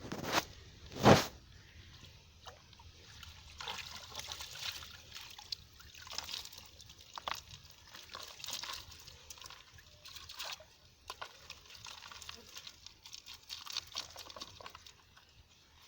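Water splashing and dripping in irregular bursts, with one loud knock about a second in.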